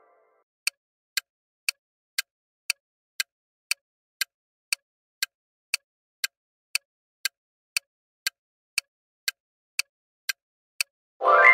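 Countdown-timer sound effect ticking evenly, about two ticks a second, some twenty ticks in all. Near the end a loud, bright pitched sound effect cuts in, marking the answer reveal.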